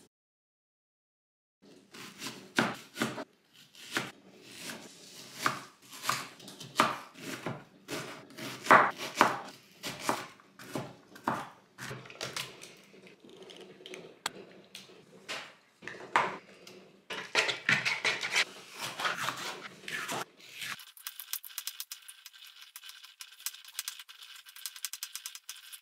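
Food-preparation sounds: a knife cutting on a plastic cutting board, and a spoon scraping tuna out of a tin into a plastic mixing bowl, heard as irregular knocks and scrapes. Near the end there is a quick, even run of knife strokes as a red pepper is sliced.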